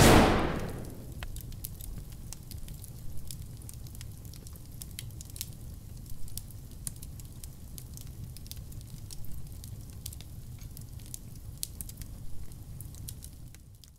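A loud rushing swell of noise at the start that fades within about a second, then campfire ambience: a low steady rumble with irregular crackles and pops, fading out near the end.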